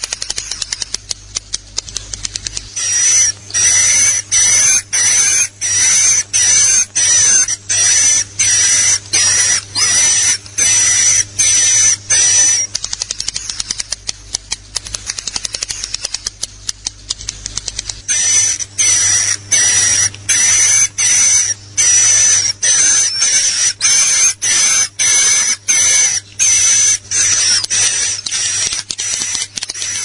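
Recorded swiftlet lure call: a rhythmic series of high chirps, about two a second, each with a thin steady whistle on top. It opens with a quicker, softer clicking twitter, switches to the chirps about three seconds in, returns to the twitter in the middle, then takes up the chirps again.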